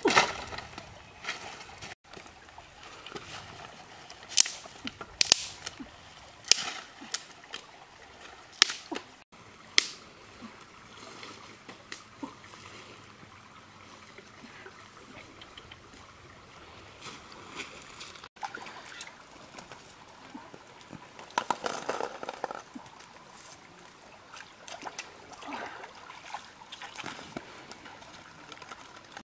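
Dry sticks snapping and knocking in a handful of sharp cracks during the first nine seconds. Water sloshes and trickles later, as a pot is washed in a shallow stream.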